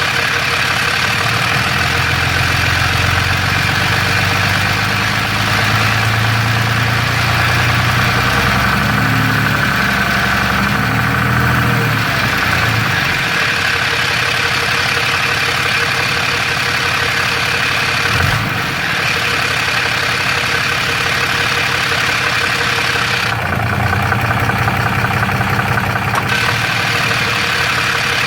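6.7L Cummins inline-six turbo-diesel in a third-gen Ram running at idle, with a rattle from the bell housing. The owner is unsure whether it means a cracked flex plate or a triple-disc torque converter, which could be normal for that converter.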